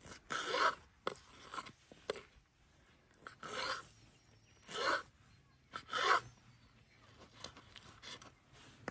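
Knife cutting through dragon fruit on a wooden cutting board: several short slicing strokes, four of them louder, each a brief scrape through the flesh and skin, with small taps of the blade on the board in between.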